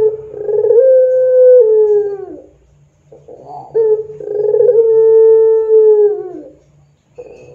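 Puter pelung, a barbary (ringneck) dove bred for its long coo, calling twice: each coo is held for about three seconds and slides down in pitch as it ends. A third coo starts near the end.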